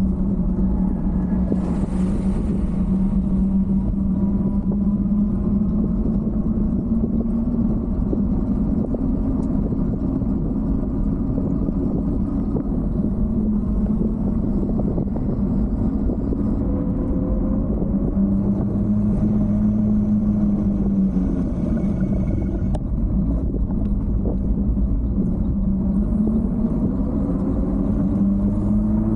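Fat-tyre bike riding along pavement: a steady low hum that drifts up and down in pitch with speed, over a constant wind rumble on the microphone.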